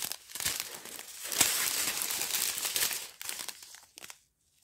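Small plastic bags of round diamond-painting drills crinkling as they are handled, loudest in the middle and fading away near the end.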